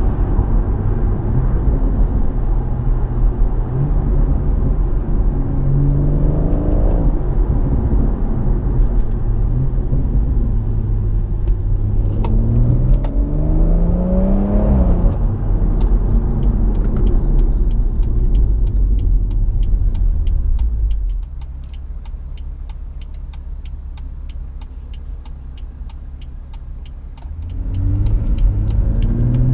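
BMW M140i's turbocharged 3.0-litre straight-six, with an M Performance exhaust, heard from inside the cabin while driving. The engine note climbs in pitch twice as the car accelerates, then drops to a quieter steady hum for several seconds before picking up again near the end.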